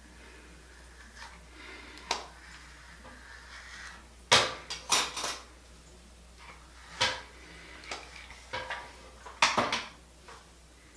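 Flat iron's hard plates clacking shut and open as sections of hair are clamped and released: irregular sharp clacks, some in quick runs of two or three, the loudest about four seconds in and again near the end.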